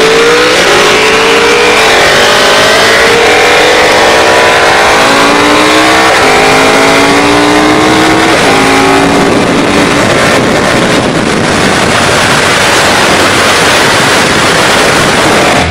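KTM 1290 Super Duke GT's V-twin engine accelerating hard through the gears, its pitch climbing and dropping back at each upshift. From about ten seconds in, heavy wind rush on the microphone at speed drowns out the engine.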